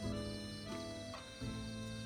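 Soft background music: held notes that change every second or so.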